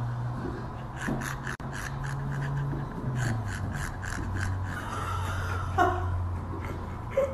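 Siberian husky making quick, repeated rasping gasps with its mouth wide open, several a second.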